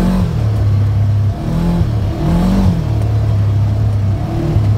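Vehicle engine running steadily while driving, its pitch briefly rising and falling a few times.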